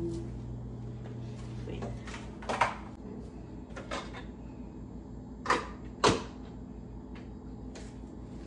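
Plastic clicks and knocks from a single-serve pod coffee maker being handled to brew a cup, with sharper knocks a little before three seconds in and twice more about five and a half and six seconds in.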